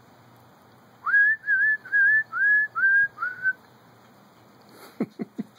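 A person whistling six short notes in quick succession, each sliding up and then holding, to call a puppy. A few quick, short, low sounds follow near the end.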